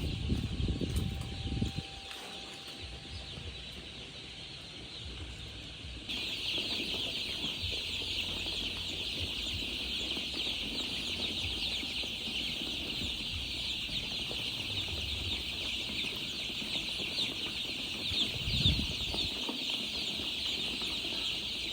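A crowd of baby chicks peeping continuously, many high chirps overlapping; the chorus gets louder about six seconds in. Low rumbling in the first couple of seconds and a single thump near the end.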